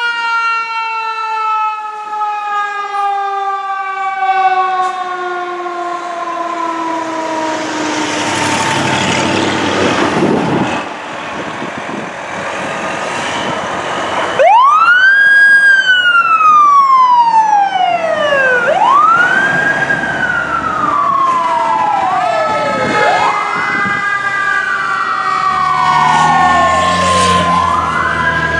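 Fire apparatus sirens responding from the station. First a mechanical-type siren winds slowly down in pitch over several seconds. About halfway through a louder electronic wail siren comes in, rising and falling about every four seconds, with a second siren tone gliding down underneath and quicker rise-and-fall cycles later. A heavy truck engine rumbles near the end.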